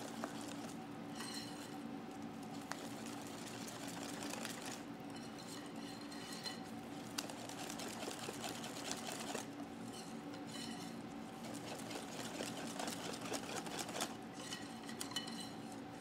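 Wire whisk beating liquid batter in a glass bowl: continuous wet swishing with the wires ticking and clinking against the glass, with brighter ringing clinks every few seconds. A steady low hum runs underneath.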